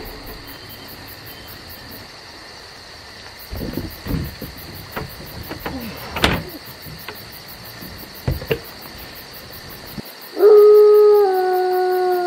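A long wolf howl begins about ten seconds in and is the loudest sound, its pitch stepping down slightly as it holds. Before it come scattered knocks and rattles of a plastic wheeled trash bin being handled, over a steady high insect drone.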